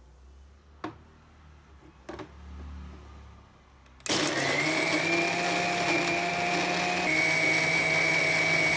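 Usha Food-Court food processor's small grinder jar grinding Oreo biscuits to powder: the motor starts abruptly about four seconds in and runs at a steady whine, shifting slightly in pitch about seven seconds in. A few faint knocks come before it.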